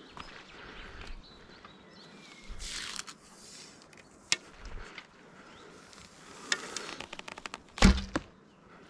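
Archery equipment being handled, with rustling and several sharp clicks, then a loud thump near the end, typical of a bow being shot.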